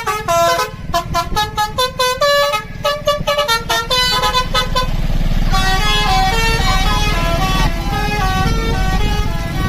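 Basuri multi-tone 'telolet' bus horn playing a melody: a quick run of short stepped notes, then longer held notes over a low rumble from about halfway.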